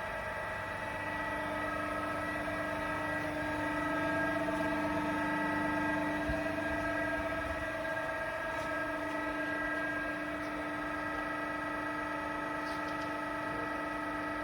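AMADA HFBO 50 x 2000 CNC hydraulic press brake running, its hydraulic pump and motor giving a steady hum with several high, constant tones.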